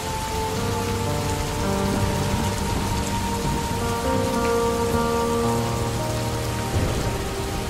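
Steady rain falling on surfaces and running off a roof edge, under soft background music of held notes.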